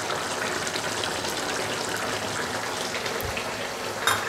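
Fish curry simmering in a nonstick frying pan, its thick gravy bubbling with a steady patter of popping bubbles. A brief click near the end.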